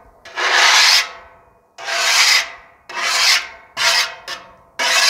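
A griddle scraper rasping across the oiled steel cooktop of a 28-inch Blackstone Pro Series griddle, in about five strokes roughly a second apart, clearing a patch of the surface.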